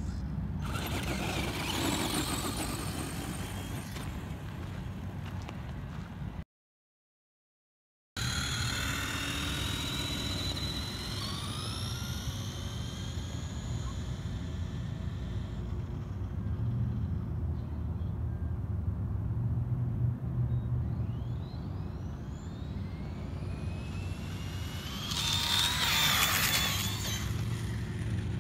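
Electric RC monster trucks driving hard, their motors and gears whining up and down in pitch as they accelerate and slow. Bursts of louder rushing noise come near the start and near the end, and the sound drops out briefly once.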